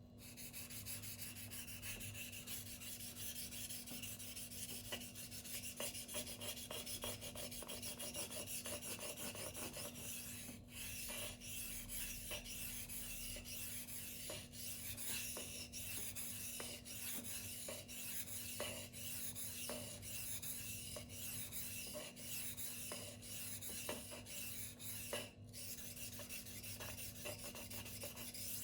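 Steel knife blade of a Spyderco Tenacious (8Cr13MoV) being stroked freehand over a silicon carbide whetstone: a continuous gritty scraping made of many short strokes. There are brief breaks about ten seconds in and again about twenty-five seconds in.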